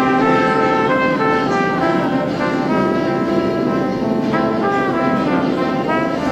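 Background music, a melody of held notes that change about every half second over sustained chords.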